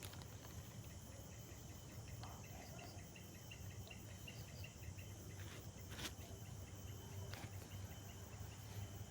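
Faint chorus of insects chirping, with a rhythmic run of chirps in the middle and a few sharp clicks.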